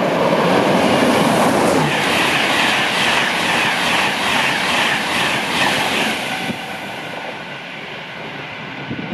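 InterCity 225 express, hauled by a Class 91 electric locomotive, passing through at speed: a loud rush of wheels and air, with a rapid clatter of wheels clicking over the track through the middle. It fades away after about six and a half seconds as the train moves off.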